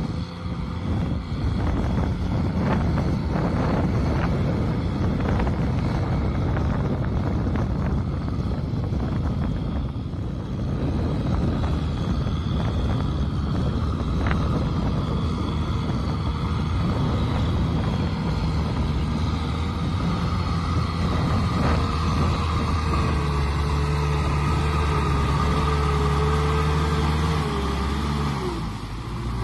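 Kubota M6040SU tractor's four-cylinder diesel engine running steadily under load while pulling a disc plow through mud. In the second half the engine tone grows fuller and steadier, with a faint high whine for several seconds near the end.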